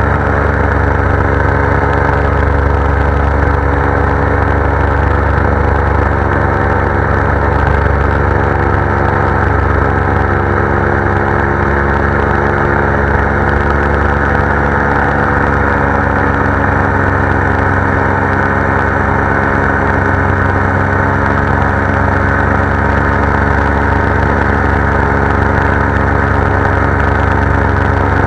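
Paramotor engine and propeller running steadily in flight, loud and close, with an even, unchanging pitch.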